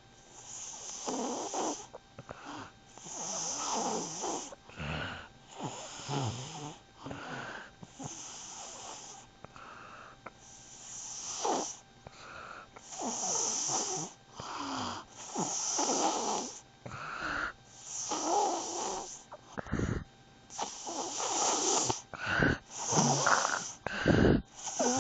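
Snoring: slow, regular breaths, one about every two to three seconds, each a rasping sound, with a few shorter, sharper breaths near the end.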